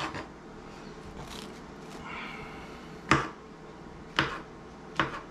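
Kitchen knife slicing button mushrooms on a plastic cutting board: three sharp taps of the blade hitting the board, about a second apart, in the second half, over quiet room tone.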